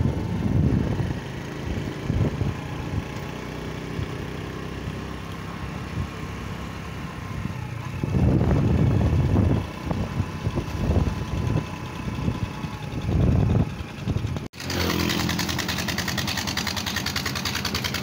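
Engine of a moving vehicle running steadily on a road, with gusts of wind buffeting the microphone. A cut about two-thirds through switches to a steadier, hissier run of engine and road noise.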